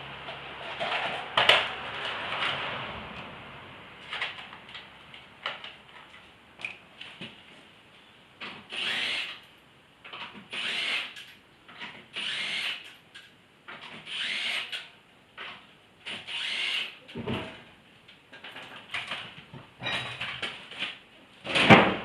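Hand work with tools while changing car tyres: short rasping bursts about every two seconds, mixed with sharp knocks, the loudest one near the end.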